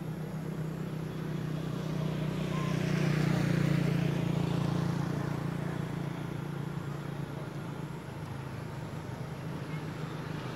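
Road traffic: a steady engine hum with tyre rush that grows louder about three seconds in as a vehicle passes, then eases off.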